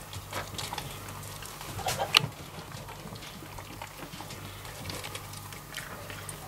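Ram eating boiled-potato feed from a plastic tray: quiet, irregular clicking and crunching of chewing and of its muzzle working the mash, with one sharper click about two seconds in, over a steady low hum.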